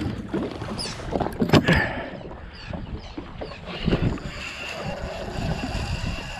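Choppy sea slapping against a jet ski's hull, with wind on the microphone. There are a few sharp knocks in the first couple of seconds.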